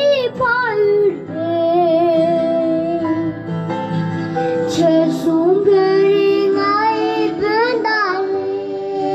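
A young boy singing a Tibetan song into a microphone, holding long wavering notes with vibrato, over a steady instrumental backing.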